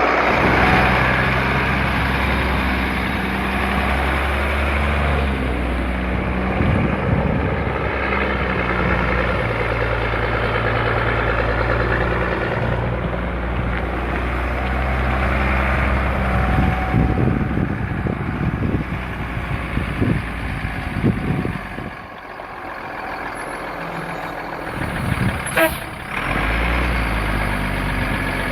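1988 International garbage truck's engine running, its speed shifting up and down several times. There are clanks and rattles through the middle stretch, the engine drops away for a few seconds, and a sharp click comes just before it picks up again.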